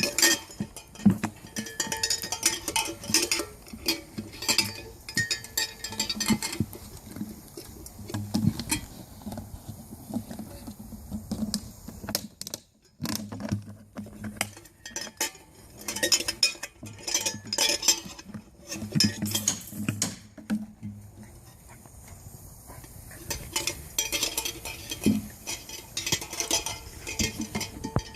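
A litter of chocolate Labrador puppies playing, with busy clicking and clinking in bursts and a short lull about halfway through.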